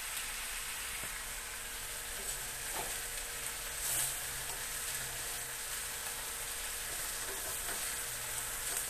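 Pink salmon heads, onions and tomatoes sizzling steadily as they fry in oil in a wok, with a few faint scrapes of a spatula as the fish is turned.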